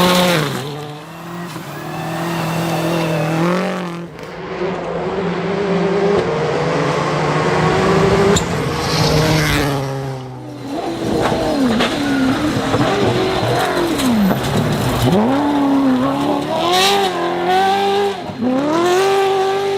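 Rally car engines revving hard, their pitch climbing and dropping again and again through gear changes and lifts, with sudden breaks about four and ten seconds in.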